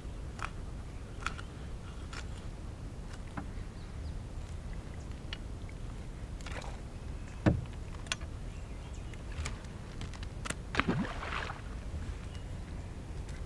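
Canoe sounds: scattered small knocks and water sounds, as of a paddle working against the hull, over a steady low rumble, with the loudest knock about seven and a half seconds in and a short cluster of knocks about eleven seconds in.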